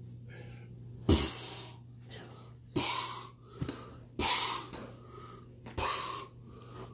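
Sharp, breathy huffs and grunts of exertion from people play-wrestling, five of them, the first and loudest with a low thud of a body hitting the floor. A steady low hum runs underneath.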